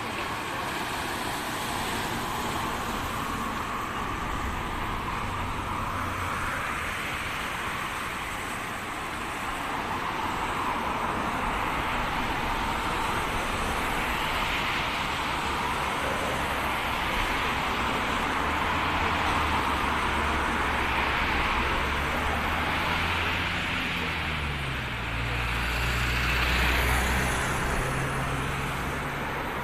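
Coastal road traffic and surf: a steady wash of noise that swells and eases every few seconds as vehicles pass and waves break, with a vehicle engine's low hum in the second half that shifts in pitch near the end.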